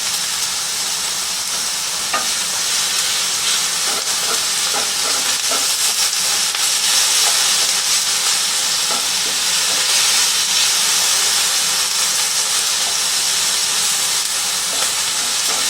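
Chicken pieces sizzling steadily as they brown in a hot frying pan, with a few faint knocks of a utensil stirring them.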